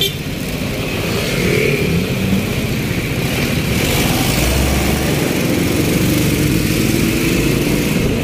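Motorcycle engine of a moving tricycle running steadily under way, with wind rushing over the microphone on the open back seat.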